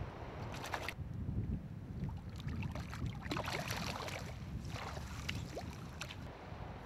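River water splashing and gurgling close to the microphone in three spells as a hand releases a fish in the shallows, over a steady rumble of wind on the microphone.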